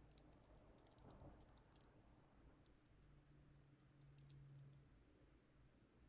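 Near silence: room tone with faint light clicks scattered through the first two seconds.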